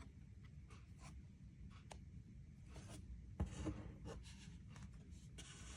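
Faint scraping and sliding of Panini Prism basketball cards being flipped through by hand, with a light tap about three and a half seconds in.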